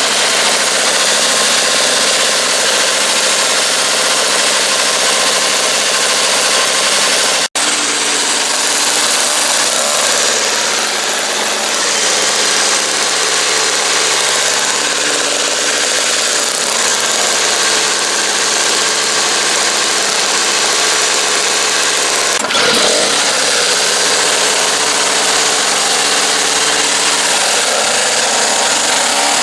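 MTD 3.5 HP two-stroke single-stage snowblower engine running steadily, with a sudden brief break about seven seconds in.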